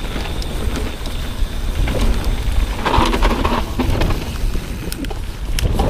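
Mountain bike ridden fast down a dirt forest trail: wind buffeting the microphone with a low rumble over the rush of knobby tyres on dirt and the bike rattling over bumps. A louder burst of tyre-on-dirt noise comes about three seconds in.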